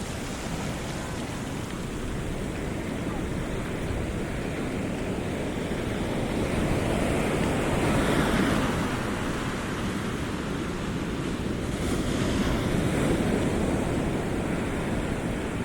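Pacific Ocean surf: waves washing in, swelling to a peak about halfway through and again near the end, with wind rumbling on the microphone.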